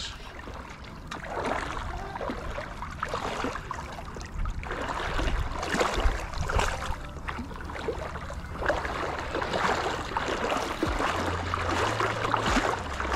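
A hooked redfish splashing and swirling at the surface of shallow water close by, in uneven surges of sloshing water.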